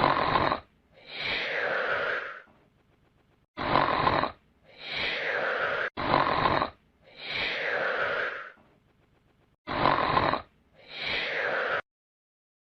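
Comic snoring sound effect, four snores in a row. Each is a short harsh intake followed by a longer rasping breath out that falls in pitch.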